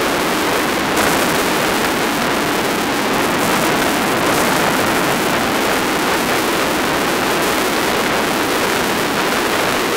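Steady rush of wind and road noise on an onboard camera of a Cagiva Elefant motorcycle riding at speed over a gravel track, with a brief knock about a second in.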